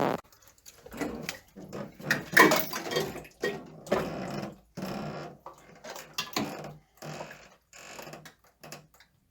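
Irregular clicks, knocks and rattles of plastic parts being handled in a toilet tank as a fill valve is swapped out.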